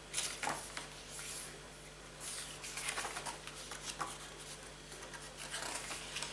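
Pages of a glossy CD booklet being turned and handled: a series of soft paper rustles and swishes.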